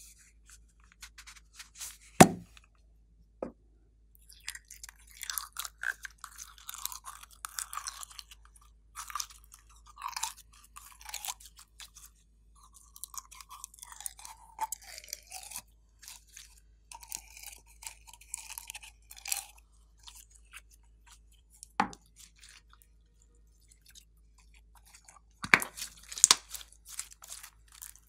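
Pink glitter slime crackling and squelching as it is squeezed and pushed out of a ribbed plastic container and handled, with a few sharp knocks of the plastic container, the loudest near the start and near the end.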